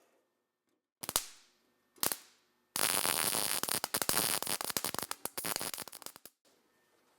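Arc welder welding a patch into thin sheet steel: two short tacks about a second apart, then a crackling bead lasting about three and a half seconds.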